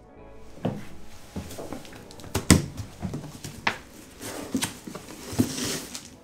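Parts and packaging being handled while a heater kit is unpacked from its box: a series of separate knocks and thuds, the loudest about two and a half seconds in, with some rustling near the end.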